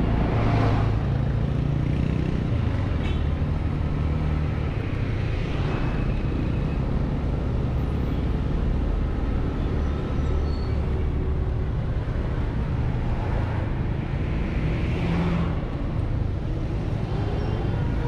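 Steady running and road noise of a 149cc Kavan S scooter ridden slowly through heavy city traffic, with neighbouring vehicles swelling louder as they pass close by a few times.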